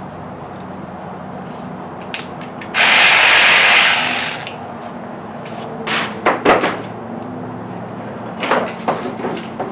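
A handheld power tool runs once for about a second and a half, snugging down a cylinder-head bolt. It is followed by two clusters of short metal clicks and knocks as bolts and tools are handled.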